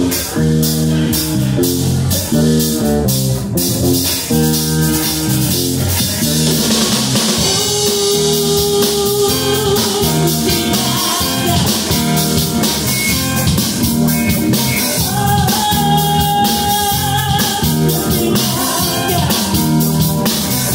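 Live rock band playing loudly, kicking in right at the start: drum kit, electric guitars and bass guitar, with a woman singing lead partway in.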